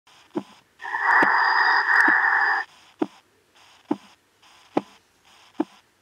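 Soft baby sleep-companion doll playing a recorded heartbeat and breathing: steady low heartbeat thumps a little under one a second, with one long breath of nearly two seconds about a second in.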